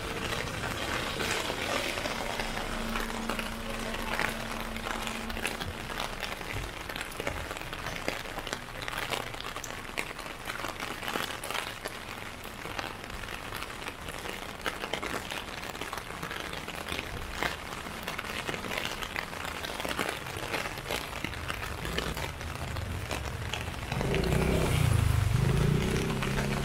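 Steady rain, with many drops tapping on an umbrella overhead. A louder low rumble rises for a couple of seconds near the end.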